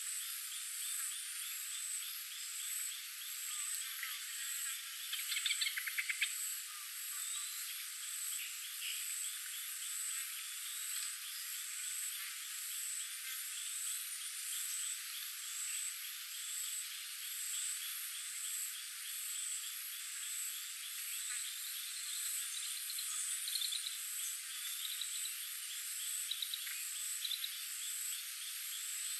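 A steady chorus of frogs and insects: rapid clicking, croaking trills under a continuous pulsing high insect buzz, with a few louder calls standing out.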